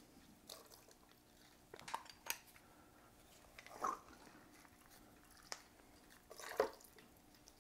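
A hand-held metal lever lime squeezer pressing a lime half and being handled: a handful of faint separate clicks and small squelches with quiet between them, the loudest near the end.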